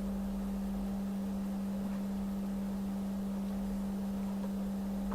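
A steady low electrical hum at one unchanging pitch, with a faint rumble beneath it.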